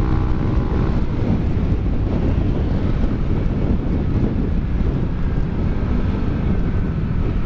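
Yamaha NMAX 155 scooter's single-cylinder four-stroke engine running steadily through a ROB1 Racing aftermarket exhaust, with a deep exhaust rumble and wind on the microphone.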